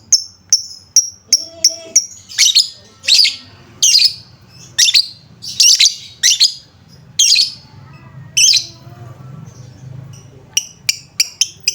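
Lovebird chirping in sharp, shrill calls, roughly one to two a second. After a short pause near the end it breaks into a fast run of short chirps, about four a second.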